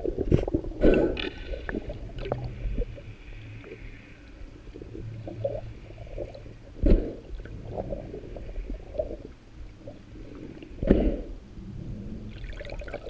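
Muffled underwater water noise picked up by a submerged camera: low rumbling and gurgling, with a few dull knocks near the start, about seven seconds in and about eleven seconds in.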